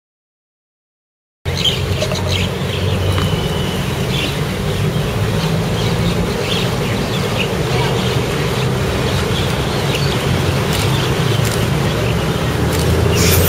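Silence for about the first second and a half, then outdoor ambience: short, scattered bird chirps over a steady low hum.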